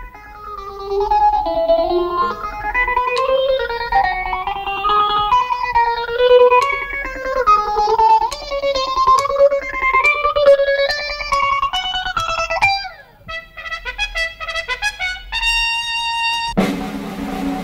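Film score music: a fast, busy melody of short plucked-string notes. It thins out to a few scattered notes about thirteen seconds in, then a single held high tone sounds, and a fuller, hissier sound comes in just before the end.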